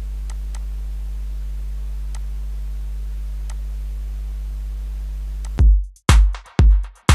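A steady low hum with a few faint clicks, then about five and a half seconds in, electronic dance music starts with a heavy drum-machine kick about twice a second.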